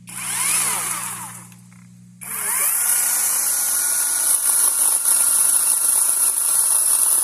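Chainsaw cutting into a pine tree: a short burst at full throttle that dies down after about a second and a half, then about two seconds in the saw speeds up again and holds a steady high whine at full speed.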